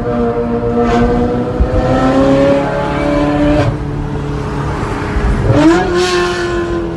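Ferrari engine revving, its pitch climbing slowly, dropping sharply about halfway through, then rising quickly again and holding steady near the end.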